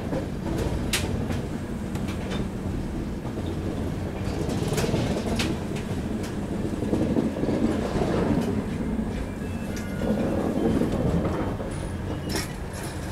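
A passenger train's LHB coaches rolling along the track, with a steady low rumble and hum, and the wheels clacking over rail joints and points a few times as the train pulls into a station.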